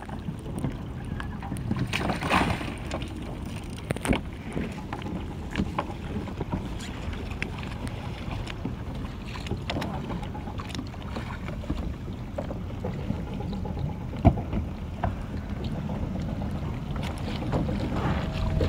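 Water splashing and sloshing around a swimmer and a capsized plastic fishing kayak while it is righted, with irregular small splashes and knocks over a steady rumble of wind on the microphone.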